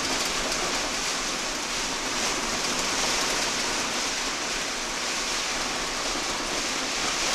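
Heavy rain on a moving motorhome, heard from inside the cab: a steady hiss of rain on the windscreen and body, mixed with tyres on the wet road.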